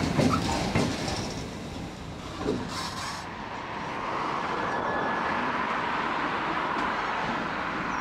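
EWS Class 66 diesel locomotive passing close by, loud at first and fading over the first two seconds. The sound then changes abruptly, about three seconds in, to a steadier, more distant running sound of a Class 66 hauling autoballaster wagons as it approaches, with a faint thin squeal now and then.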